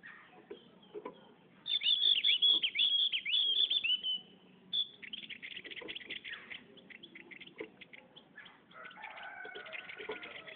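Javan grey-throated white-eye (opior jawa) singing. It starts with a loud run of about eight quick down-swept whistled notes, then gives a fast chattering trill, then softer twittering with some lower gliding notes near the end.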